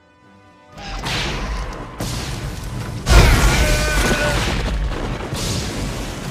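Loud rumbling booms and crashes over music. The biggest boom comes about three seconds in, with a wavering wail above the rumble that dies away.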